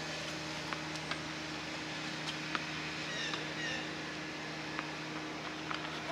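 Tennis ball struck by a racket: a few short, sharp pocks at irregular intervals over a steady low hum, with a few faint high chirps about halfway through.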